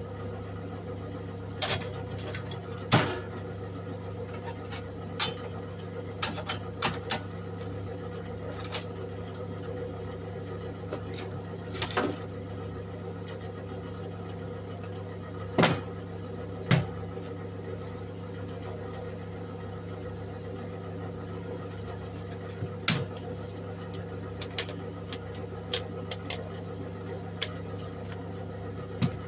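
A steady low electrical hum throughout, broken by scattered sharp clicks and knocks of metal being handled, the loudest about three seconds in and twice in close succession around the middle.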